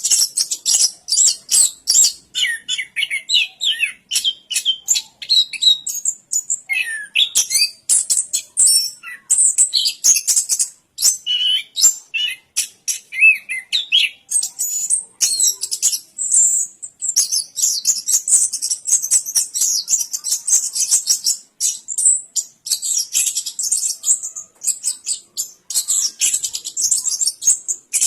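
Chestnut-capped thrush (anis kembang) singing a long, unbroken song of fast, varied high twittering notes, with lower whistled phrases woven in during the first half.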